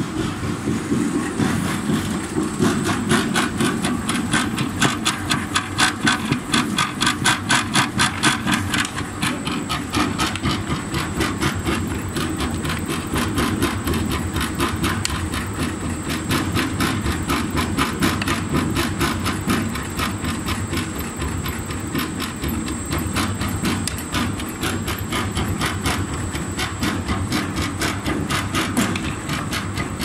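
Pellet press running, pushing poultry farm waste through its 8 mm pellet die: a steady machine drone with a fast, regular clacking beat.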